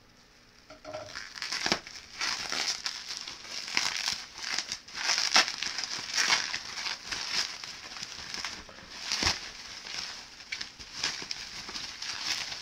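Bubble wrap and plastic packaging crinkling and rustling as it is handled and pulled apart, with many small sharp crackles and a louder snap about nine seconds in. It starts about a second in, after a brief quiet.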